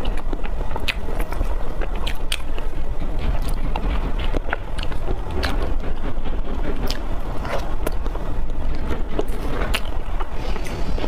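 Close-miked eating of chocolate mousse cake: soft, wet chewing with many sharp, irregular mouth clicks and smacks, over a steady low hum.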